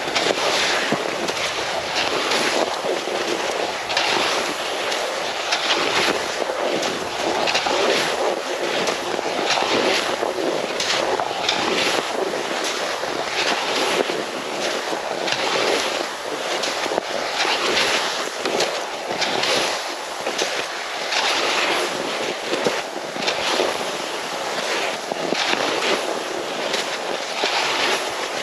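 Cross-country skis scraping and gliding over hard, granular snow, a steady dense crackle of many small irregular scrapes.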